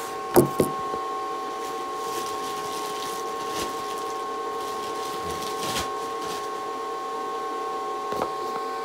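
Two sharp knocks about half a second in, then a steady machine hum made of several fixed tones.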